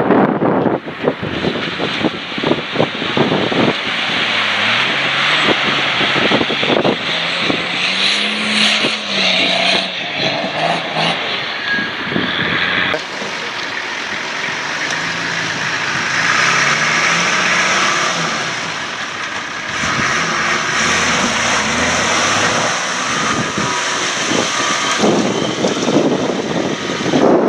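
Diesel 4x4 engine driven off-road, its revs rising and falling again and again under load, over a strong broad hiss. The sound changes abruptly a few times, as between separate clips.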